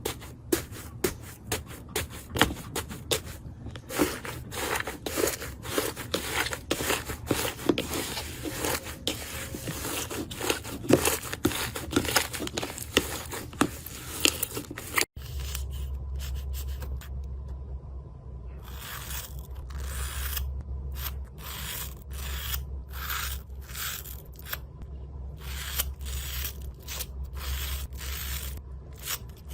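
Slime being worked by hand up close, making rapid sticky clicks and crackles. After a cut about halfway, the clicks and pops come more sparsely over a steady low hum.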